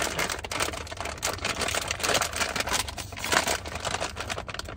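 Chip bag crinkling and rustling as it is pulled and torn open by hand: a dense, continuous crackle.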